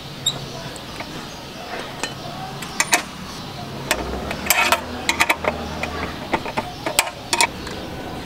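Spanner and Allen key clinking against a motorcycle's steel exhaust hanger bracket and bolt as a silencer is bolted on: a scatter of sharp metallic clicks and taps, busiest in the middle.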